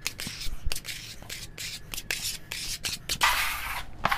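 A flexible plastic trowel scraping and smoothing a coat of decorative paste over a wall: a series of short rasping strokes, with one longer, louder stroke near the end.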